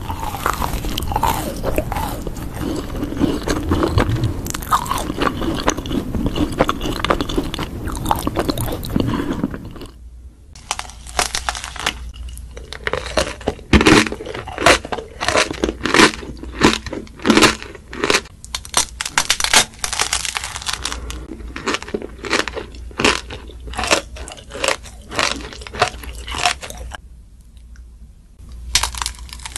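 Close-miked eating of macarons: biting into the crisp shells and chewing the soft, filled centres. The first part is a steady, dense run of chewing. From about a third of the way in come many sharp, separate crunches, with a brief pause near the end.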